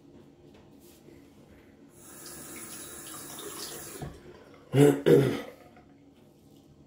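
Bathroom sink tap running for about two seconds, then shut off. Shortly after come two short, loud sounds about half a second apart.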